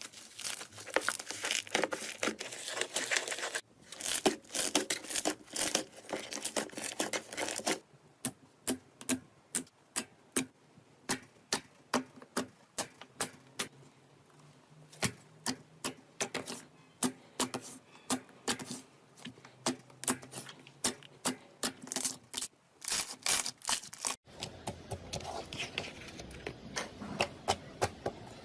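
Slime being squeezed and pressed by hand. It crackles densely at first, then makes sharp separate clicking pops about twice a second, then crackles densely again for the last few seconds.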